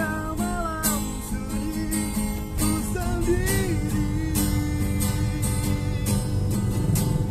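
A street busker singing with a strummed acoustic guitar. The guitar strums keep a steady rhythm, and sung phrases come in and out over it.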